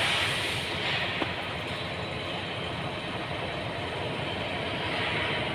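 Car engine running at idle, steady, with a hiss over it. The owner reports that the engine won't rev when the accelerator is pressed and shakes, with fuel rail pressure sensor code P0190 stored.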